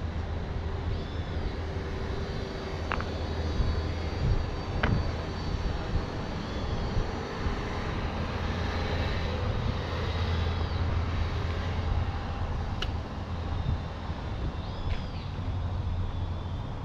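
Outdoor park ambience: a steady low rumble of distant engines, with a few short high bird chirps and three sharp clicks.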